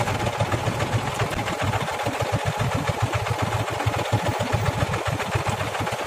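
Tractor diesel engine idling, a fast, even chugging.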